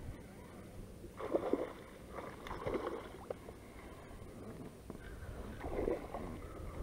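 Water lapping and sloshing against a small fishing boat's hull in three short swells, over a low steady background.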